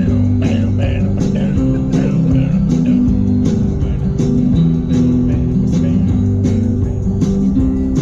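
Song playing: an instrumental stretch of guitar and bass over a steady drum beat, between sung lines.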